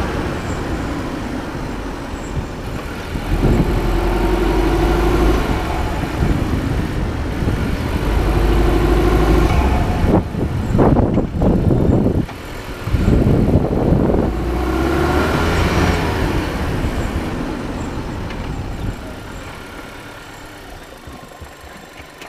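Steady road and wind noise from a vehicle travelling with the camera just above the asphalt, with several swelling rushes in the middle. The noise dies down near the end as the vehicle slows to a stop.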